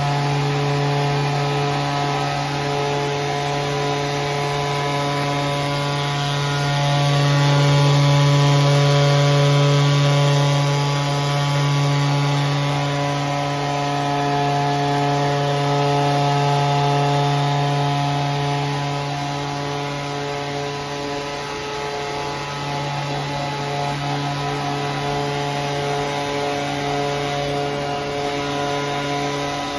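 Two-stroke petrol chainsaw engine running at a steady high speed of about 8,500 rpm under load on a test dynamometer, a steady buzzing tone. It swells a little about eight seconds in and eases slightly after about twenty seconds.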